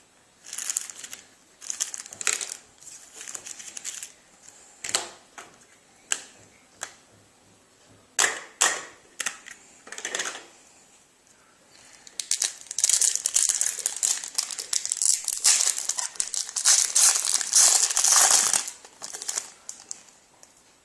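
Trading-card pack wrapper crinkling as it is handled and torn open. At first there are scattered crackles and taps. About halfway through it turns to dense, continuous crinkling that stops shortly before the end.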